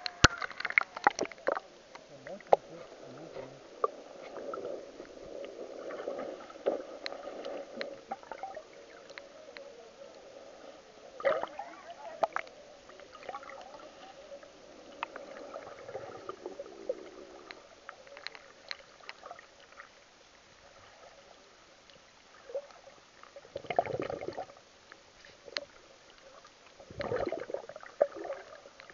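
Muffled underwater sound picked up by a camera in a waterproof housing: water gurgling and sloshing around it, with scattered sharp clicks and knocks, and two louder surges of water near the end.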